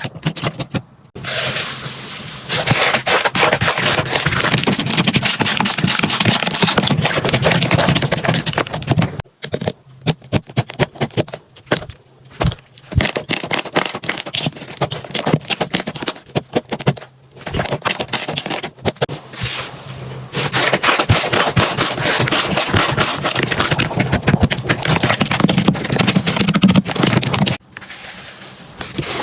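Hands squeezing and pressing slime, giving a dense crackling and popping, in two long runs with shorter, choppier bursts and brief gaps between them.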